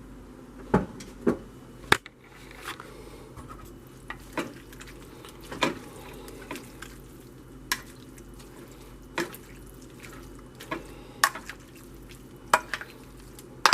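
A utensil clinking and scraping against a dish as pulled pork is stirred together with a vinegar barbecue sauce, in sharp, irregular clinks roughly once a second.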